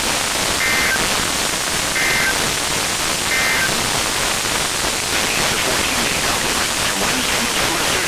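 Loud, steady radio static hiss from a weak NOAA Weather Radio signal. In the first few seconds, three short, faint two-tone SAME digital data bursts come through, about a second and a half apart.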